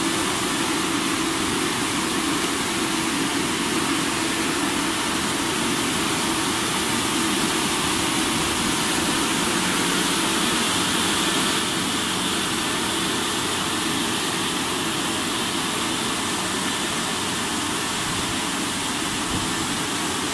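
Risense CF-370 rollover car wash machine running through a wash cycle: its brushes spin against the car amid water spray, a steady rushing hiss over a constant motor hum. It gets slightly quieter about halfway through.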